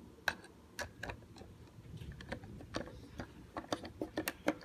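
Screwdriver driving a small screw through a plastic pearloid back cover plate into a guitar body: irregular light clicks and ticks, coming more often near the end.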